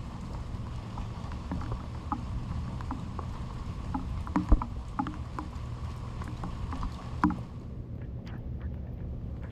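Rain falling steadily over a low rumble, with scattered louder drips and taps, the sharpest about halfway through. The higher hiss thins out near the end.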